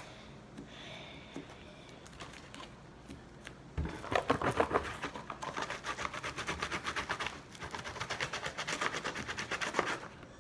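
Rapid repeated scraping, several quick strokes a second, starting about four seconds in: a utensil scraping leftover slime out of a plastic container.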